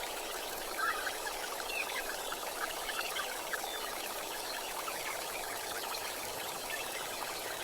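Steady rain falling, an even hiss, with faint high chirps scattered through it.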